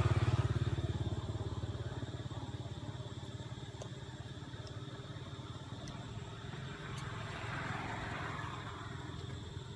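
A vehicle engine running, loudest just after the start and fading steadily over several seconds as it moves away.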